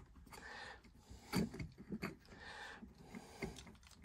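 Faint handling noise of wires and a plastic 13 A plug socket: light rubbing and small clicks as the earth cores are fed into the terminal, with a sharper knock about a second and a half in and another near the end.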